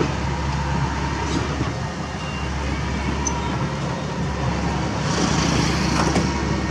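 Diesel engines of loaded tipper dump trucks idling in a line, a steady low running sound, with a hiss that rises about five seconds in.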